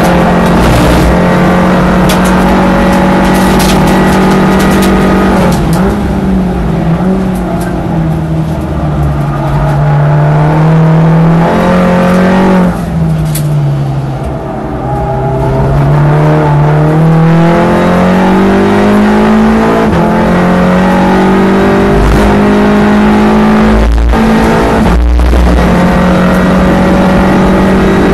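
Golf MK7 GTI race car's 2.0-litre turbocharged four-cylinder engine heard from inside the cabin. It runs hard at speed, then drops in pitch through a few downshifts under braking to its lowest note about halfway through, and climbs steadily again under full acceleration. A gear change breaks the rising note a few seconds before the end.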